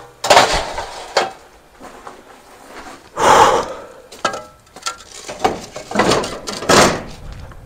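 A string of knocks and scrapes as a small ladder is carried and put away, the loudest knock about three seconds in.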